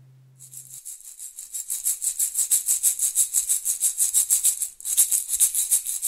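Outro music: a fast, even shaker rhythm starting about half a second in, breaking off briefly near the end and resuming. A low guitar note dies away at the start.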